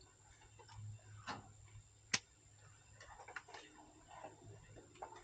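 Faint scattered clicks and taps from handling equipment, with one sharper click about two seconds in, over a faint low hum.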